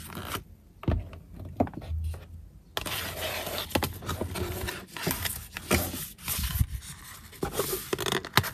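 Hands handling a cardboard album box: a few light knocks early on give way, about three seconds in, to steadier scraping and rubbing of card as the ribbon-tied inner box is lifted and turned.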